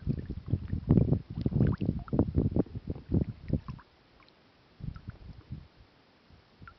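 Kayak being paddled: the paddle splashing and dripping water, with irregular low knocks and rumbles close to the microphone. It goes much quieter about four seconds in, with a few softer splashes after.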